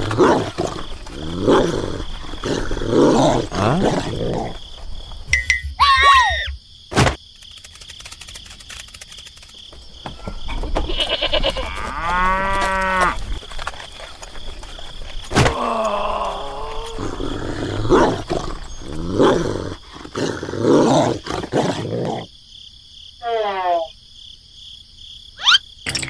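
A string of dubbed cartoon sound effects: short animal calls and cries, one after another, with a falling whistle-like sweep near the end followed by a quick rising one.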